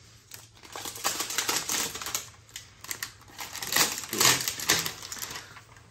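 Plastic protective wrap being peeled and pulled off a new HP Envy x360 laptop: an irregular run of crinkling and crackling, loudest about four seconds in.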